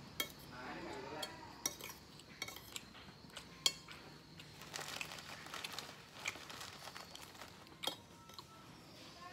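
A metal spoon and fork clinking and scraping against a ceramic bowl of fried rice while eating. There are irregular sharp clinks throughout, and the loudest comes a little under four seconds in.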